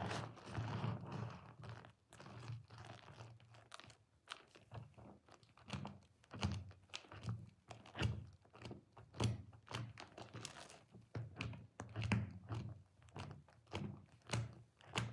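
A soap-soaked sponge heavy with white lather squeezed and kneaded by hand: wet squelching of the foam with a soft thud about once a second.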